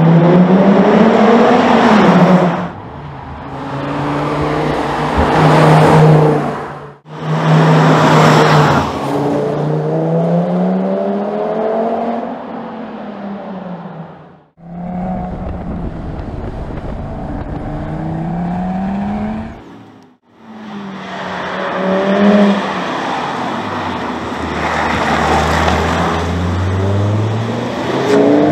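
2012 Audi TT RS coupe's turbocharged 2.5-litre inline-five engine and exhaust under hard driving: the engine note climbs as it accelerates, drops back, and climbs again through the gears. It comes in several separate passes, each cut off abruptly.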